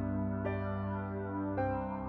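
Background music: slow, soft new-age music with long held notes over a steady low bass, the chord changing about half a second in and again near the end.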